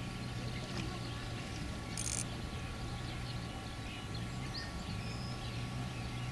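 A boat motor hums steadily as the boat moves to a new fishing spot, with birds chirping now and then. A brief hiss comes about two seconds in.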